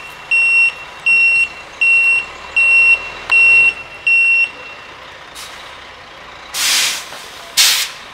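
Box truck's backup alarm beeping six times at an even pace while the truck reverses, over a faint engine rumble. Near the end come two loud hisses, typical of the truck's air brakes.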